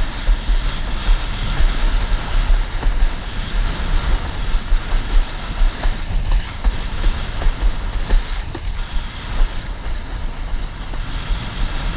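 Wind buffeting the camera's microphone in constant rapid gusts, with a deep rumble, over the rush and slap of choppy water under a windsurf board under sail.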